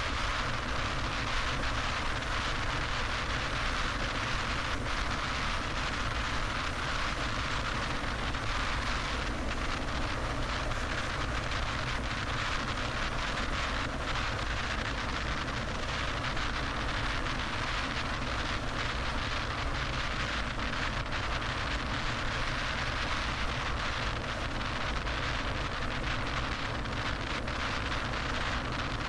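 Steady road noise of a car driving at freeway speed: an unbroken rush of tyre and wind noise.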